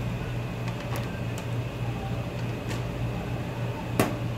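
Steady low mechanical hum of kitchen equipment, with a few light clinks of a metal spoon against a stainless steel bowl. About four seconds in, a sharper clink as the spoon is set down on the steel counter.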